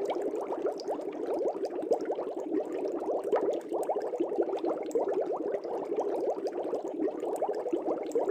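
Aquarium air bubbles streaming up through water: a steady, dense bubbling made of many quick blips, each rising slightly in pitch.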